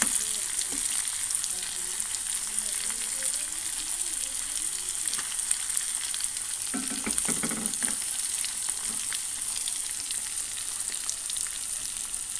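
Whole masala-coated fish frying in hot oil in a pan: a steady sizzle with many small crackles and spits.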